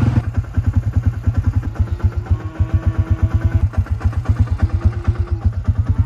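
Quad bike engine running with an even, fast beat as the bike moves along.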